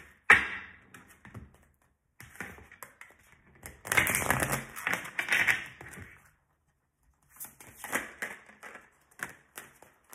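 A deck of tarot cards being shuffled by hand: quick rapid flicking and slapping of card on card, in several bursts with short pauses between.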